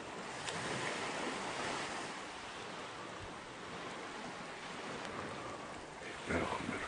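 Steady wash of surf on a sandy beach, swelling slightly at times.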